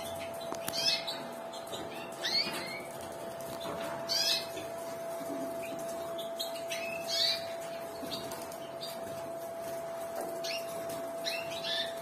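Canaries in a cage giving short chirping calls, about five spread a second or few apart, over a steady faint hum.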